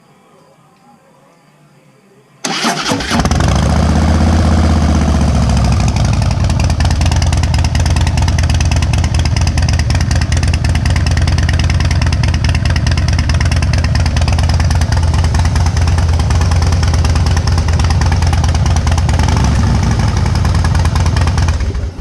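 Harley-Davidson V-twin motorcycle with loud aftermarket exhaust starting up about two and a half seconds in, giving a brief rev as it catches, then idling steadily until the sound stops abruptly just before the end.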